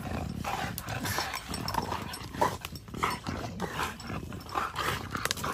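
Large dogs growling and scuffling as they tug and chew at a stick, in uneven, rough bursts.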